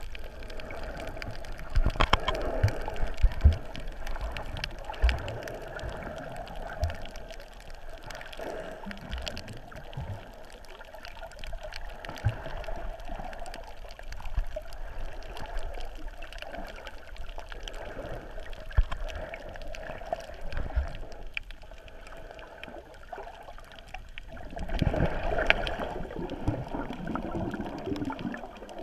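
Muffled underwater water noise as heard by a submerged camera, with scattered short low knocks and clicks. It swells louder briefly near the end.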